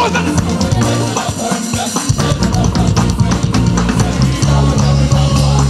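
Live church praise band playing an upbeat instrumental passage: a fast, busy drum kit over a steady bass line, without singing.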